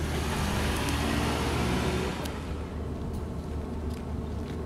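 Steady low rumble of road traffic, with a running vehicle engine most prominent; it eases slightly about halfway through.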